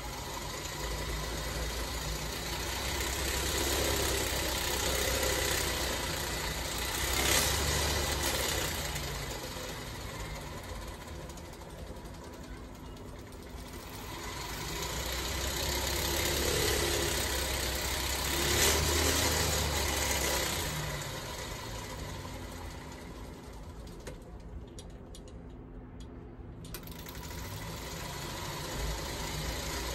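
Bicycle drivetrain running on an upturned bike: chain over a multi-sprocket freewheel with the rear wheel spinning, driving a homemade automatic gear shifter. The running swells and fades twice, with a sharp click near each peak.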